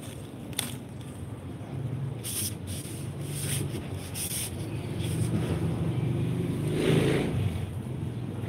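Low engine hum of a passing motor vehicle, growing louder and loudest about seven seconds in, with a few faint short rustles earlier on.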